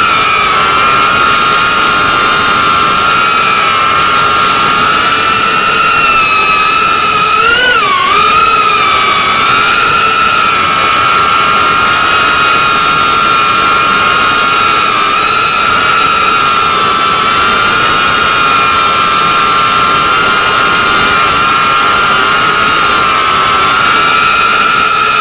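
FPV quadcopter's electric motors and propellers whining steadily at a high pitch, several tones at once, picked up by the camera on board. About eight seconds in the pitch briefly dips and wobbles, then settles again.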